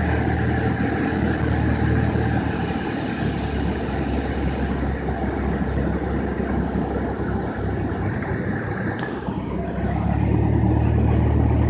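Cessna 172's piston engine and propeller running, heard inside the cabin as a steady drone with a low hum. The drone eases off about nine seconds in and picks up again a second later.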